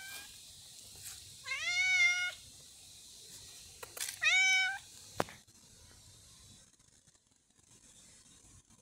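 Cat meowing: the tail of one meow at the very start, then two clear meows about two and a half seconds apart, each rising in pitch and then holding. A few sharp clicks fall between them, and it goes quieter after about five seconds.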